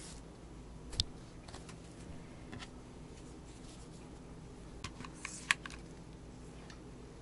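Hands handling felt and burlap fabric on a craft mat: light rustling with scattered small clicks and taps, a sharp one about a second in and a quick cluster about five seconds in.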